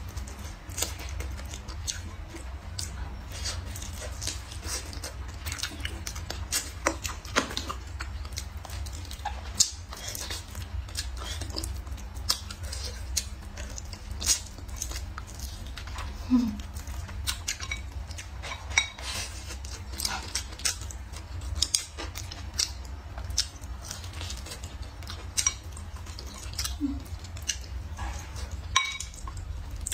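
Close-up mouth sounds of a person chewing and biting meat off a braised pork rib: irregular smacking clicks over a low steady hum.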